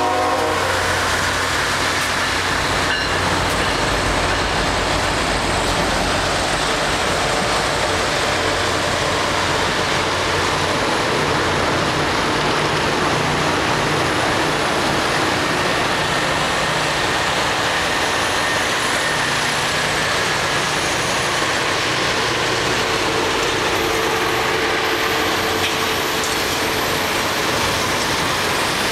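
Loram rail grinder train grinding the rails as it moves through the interlocking: a loud, steady, harsh grinding hiss over a low rumble of the train.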